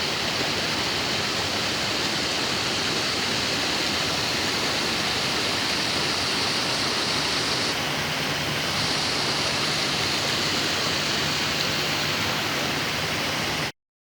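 Waterfall and rapids pouring into a pool: a steady, loud rush of water that cuts off abruptly near the end.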